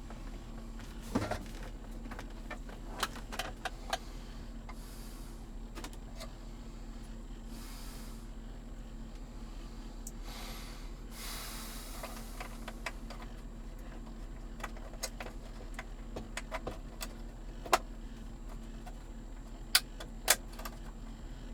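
Hands working on plastic car-interior trim and wiring, making scattered sharp clicks and taps with a few brief rustling scrapes, over a steady low hum.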